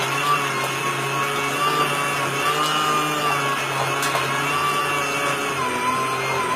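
Small electric motor of a simplified washing machine running steadily, its whine wavering slightly in pitch.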